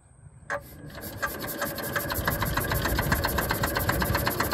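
Small boat engine starting about half a second in and running up to a rapid, even putter of beats.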